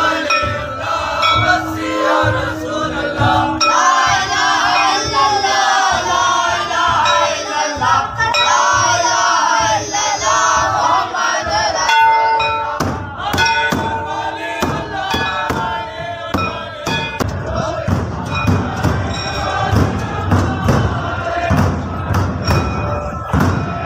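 A large crowd of men chanting loudly together, many voices overlapping. From about halfway on, sharp knocks and thuds come through the chanting.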